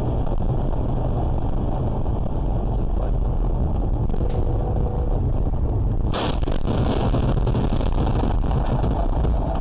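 Steady road and engine rumble inside a moving car, picked up by a dashcam. About six seconds in there is a sudden impact as the windshield is struck and cracks.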